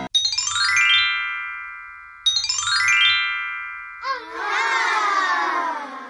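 Children's-video intro jingle: two sparkling cascades of chime notes, each ringing out, then a wobbly sound that slides down in pitch.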